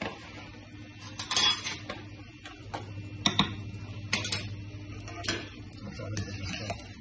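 Metal kitchen utensils clinking and scraping against stainless steel pans: a spoon in the frying pan and a wire skimmer in the gnocchi pot, with several sharp clinks. A steady low hum runs underneath.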